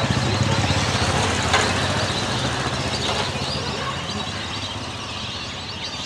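A flock of whistling ducks giving many short, high, wheezy whistles over a steady low engine rumble that eases off after the first couple of seconds.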